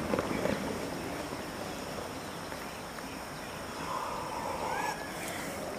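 Footfalls of a group of athletes running and scrambling on a grass field, with a few thumps near the start over steady outdoor noise.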